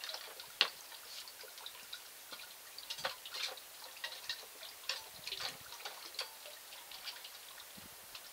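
Gravel sample being worked through a screened hopper into a small sluice box: irregular small clicks and rattles of pebbles knocking against the screen and scoop, the sharpest about half a second in, with a faint trickle of water.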